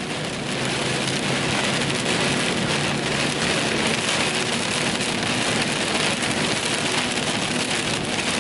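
Heavy rain pelting the storm chaser's vehicle in a thunderstorm, a dense hiss of raindrops that builds over the first second and then holds steady, with a faint steady hum underneath.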